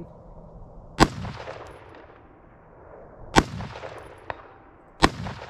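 Three single rifle shots from a budget AR-15, about two seconds apart, each echoing off the hills. Nearly a second after the second shot comes the faint ping of the bullet striking the steel target at 250 yards.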